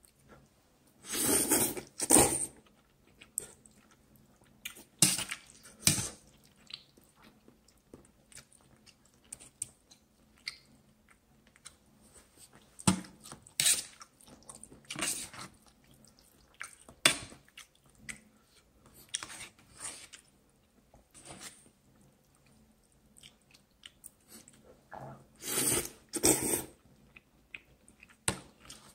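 A person slurping and chewing instant noodles close to the microphone. There are long, loud slurps about a second in and again near the end, with wet chewing and shorter sucking sounds between.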